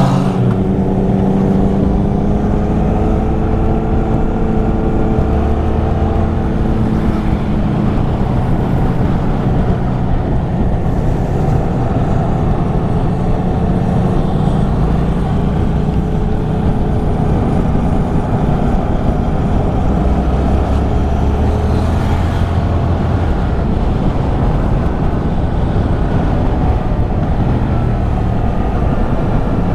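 Yamaha MT-07's 689 cc parallel-twin engine running under way, its pitch rising and falling with the throttle.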